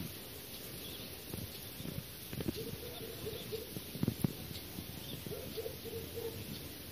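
Two dogs play-wrestling, with a few short, soft whines about two and a half and five and a half seconds in, and some soft bumps of the scuffle.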